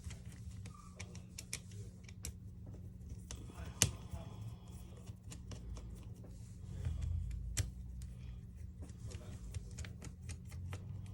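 Precision screwdriver and small tools working the screws of a Samsung A52 phone: a run of sharp, irregular clicks and ticks, two of them louder, over a steady low hum.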